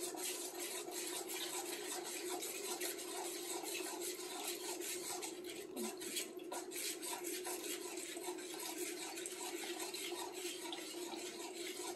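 Metal spoon stirring rice-flour batter in a stainless steel saucepan as water is poured in slowly from a measuring cup: a soft scraping about twice a second over a steady low hum.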